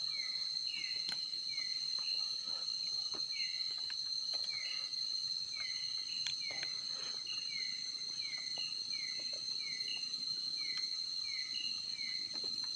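Night insects: a steady high-pitched trill under a short falling chirp that repeats about twice a second, with a few faint clicks.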